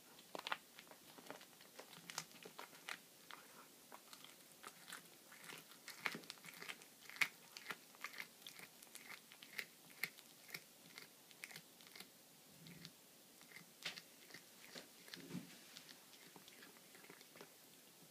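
A domestic cat chewing a baby rabbit, crunching through its small bones: irregular sharp crunches and clicks, a few a second, thinning out near the end.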